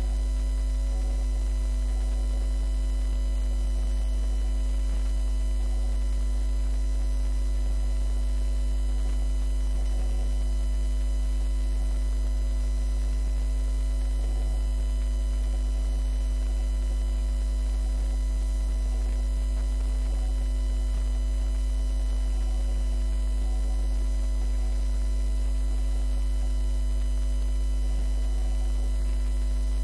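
Steady electrical mains hum: a loud low drone with a ladder of steady higher overtones, unchanging throughout.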